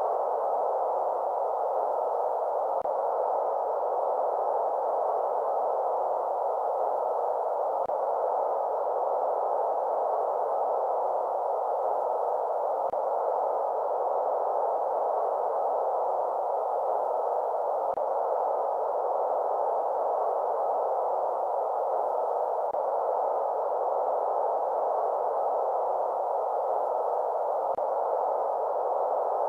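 Steady white-noise track for lulling a baby to sleep: an even, mid-pitched hiss with little bass or treble, unchanging in level, with a faint click about every five seconds.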